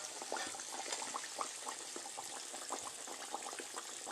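Pork chops frying in a pan of oil: a steady sizzle with many small scattered pops and crackles.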